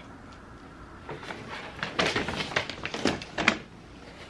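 Brown paper takeout bag rustling and crinkling in a burst of irregular crackles as hands dig through it and lift it, busiest over the second half.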